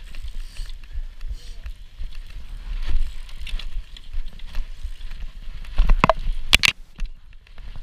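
Mountain bike rolling down a rough, snowy and icy dirt trail: a constant low rumble from the tyres and riding, with a few sharp knocks and clacks from bumps about six seconds in.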